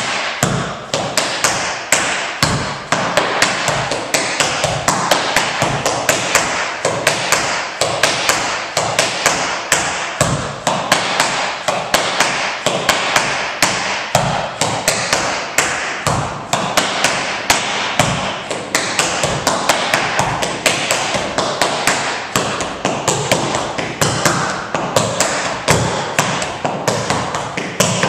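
Tap shoes striking a hardwood floor: a continuous run of quick, sharp taps in repeating rhythmic phrases.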